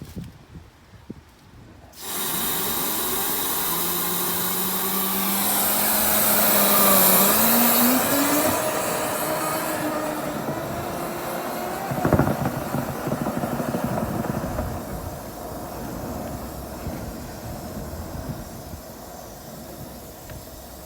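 Motor-driven dryer vent cleaning equipment starts abruptly about two seconds in: a loud rushing of air over a motor hum that climbs in pitch as it speeds up, then runs on steadily and slowly eases off. A sharp knock comes about twelve seconds in.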